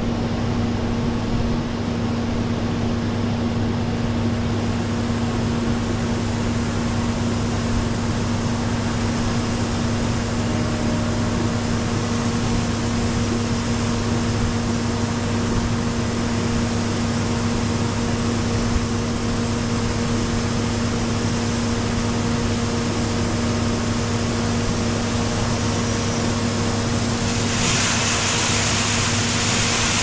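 Case IH 2388 Axial-Flow combine running steadily while harvesting corn: a constant machine drone with a steady hum. About two and a half seconds before the end a higher hiss rises over it.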